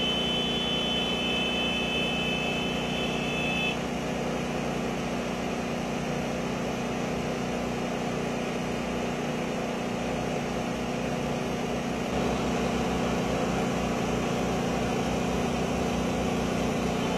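Speedboat engine running steadily while towing a rider on a board, with a thin high whine over it for the first few seconds.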